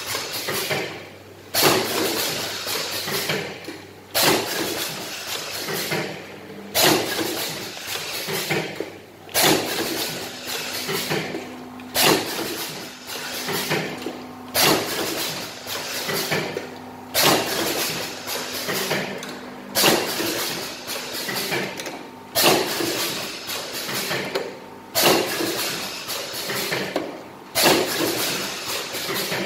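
Alcohol-pad sachet making machine running in its packing cycle: a sudden loud burst of noise about every two and a half seconds, each fading away before the next. A faint steady hum runs under it for a while in the middle.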